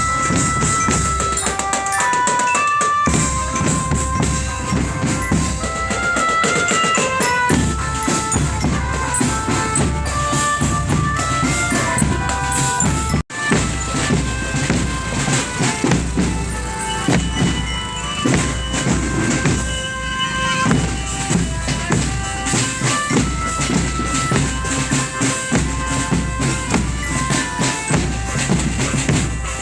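A marching drum band playing a tune over snare and bass drums, with a brief break about 13 seconds in.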